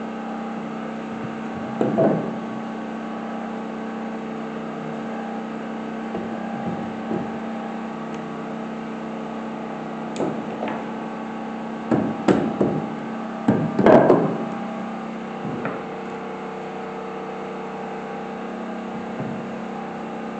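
Charred wooden stair treads being handled and set into a wooden stair frame, giving scattered knocks of wood on wood, with a cluster of them near the middle, the loudest among them. A steady hum runs underneath.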